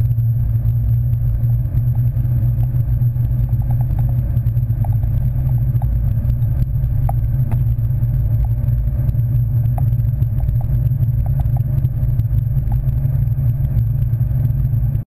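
Car on the move heard from inside the cabin: a steady low engine and road drone with a few light ticks and rattles. It cuts off suddenly just before the end.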